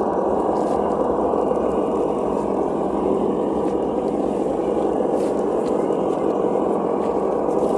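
Reely sound module on a Traxxas TRX-4 Bronco '79 RC crawler playing a steady simulated engine sound through its small speaker, with a few faint clicks.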